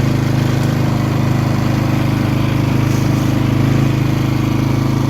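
Polaris 4x4 ATV engine running at a steady speed while being ridden, its pitch holding even.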